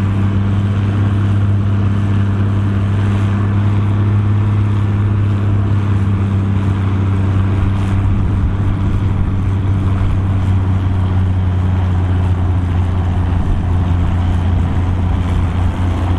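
Farm tractor's diesel engine hauling a tractor-pulling sled, running under heavy load at steady, unchanging revs with a deep drone.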